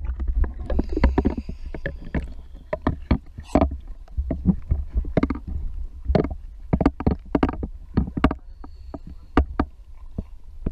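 Choppy sea water slapping and sloshing against a waterproof camera housing held at the surface. Many short, irregular splashes sound over a steady low rumble.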